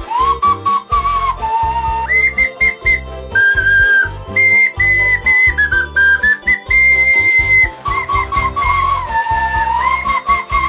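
Whistle-like melody blown on hand-made vegetable instruments (carrot, daikon radish, broccoli), over backing with a steady drum beat and bass from a Yamaha PSR-8000 keyboard. The tune jumps up an octave about two seconds in and falls back to the lower register near the end.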